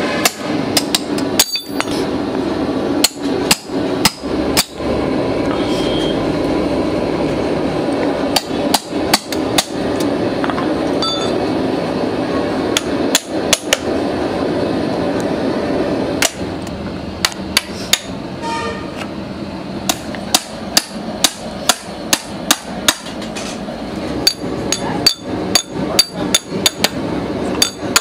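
Hammer striking a steel chisel driven into the seam between the lid and plastic case of a lead-acid battery, cutting the case open. The sharp strikes come in irregular runs with short pauses between them.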